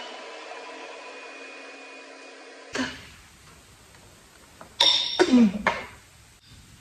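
Electric hand mixer running steadily with an even motor hum while beating egg whites, stopping about three seconds in at a sharp knock. A few loud short knocks and clatters follow a couple of seconds later.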